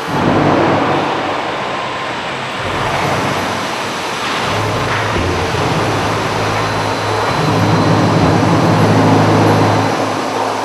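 Concrete block plant's handling machinery running, the rack elevator beside the curing racks: a steady mechanical noise, with a low machine hum that comes in about halfway, drops out briefly, then returns stronger and stops shortly before the end.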